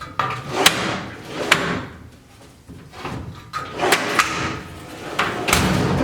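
Metal tool box drawers rolled open and shut on newly fitted drawer slides, about five strokes, each a short rolling rush ending in a sharp clack. The hardest slam comes near the end.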